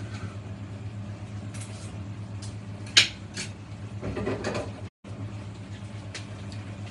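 A few clinks of a utensil against a cooking pot, the sharpest about three seconds in, over a steady low hum. A brief murmured voice just after four seconds.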